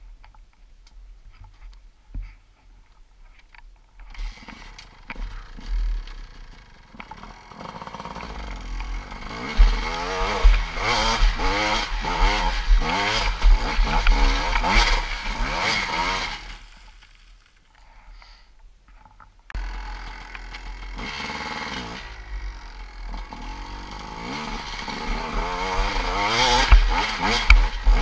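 GasGas EC 250 two-stroke enduro dirt bike engine revving hard under load on a steep, rocky hill climb, its pitch wavering up and down as the throttle works. It comes in about four seconds in, drops away for about three seconds past the middle, then revs up again and builds toward the end.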